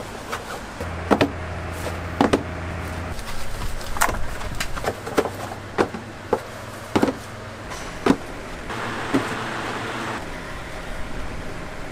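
Cardboard pizza boxes being folded and stacked: a string of sharp cardboard slaps, creases and taps. A steady low hum runs underneath for the first few seconds.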